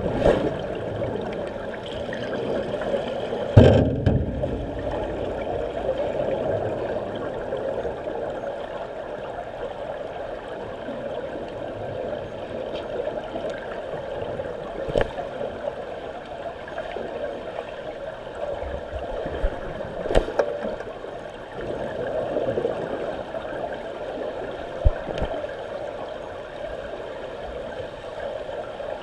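Swimmers' strokes and kicks churning the pool water, heard underwater as a steady muffled rushing, with a few sharp knocks, the loudest about three and a half seconds in and another about twenty seconds in.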